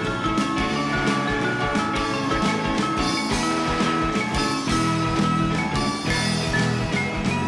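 Background music with a steady beat and bright mallet-like melody notes.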